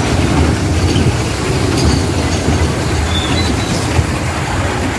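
Steady rumble of a kiddie ride's motorbike cars rolling on their circular rail track, heard from aboard the ride, with a couple of brief faint squeaks.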